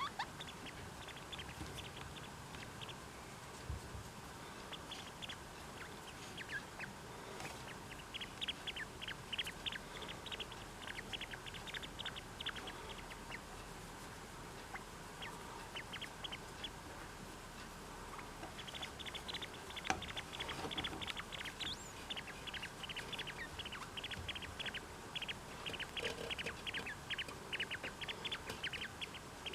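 Rapid runs of short, high chirps, many a second, coming in bursts with brief pauses between them.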